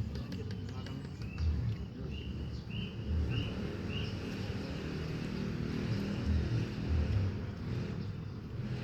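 A bird calling a run of about five short, arched chirps a little over half a second apart, over a continuous low rumble.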